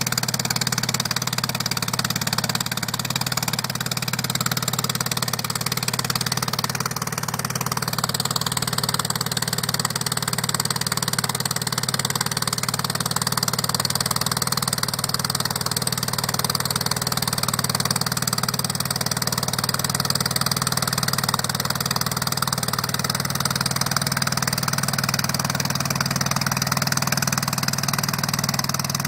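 Vintage light aircraft's piston engine droning steadily, a constant low hum with no change in pitch.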